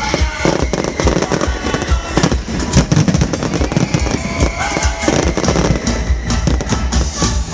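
Fireworks exploding in rapid, repeated bangs and crackles, with music playing underneath.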